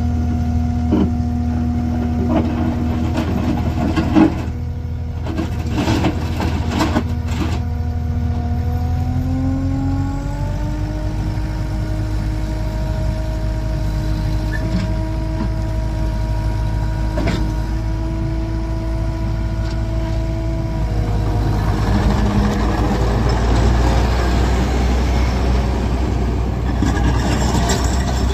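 Takeuchi TL10 compact track loader's 92 HP Kubota diesel running steadily, with a few knocks in the first several seconds. About nine seconds in, the engine speed rises and holds higher, and in the last third the steady engine note turns rougher and noisier.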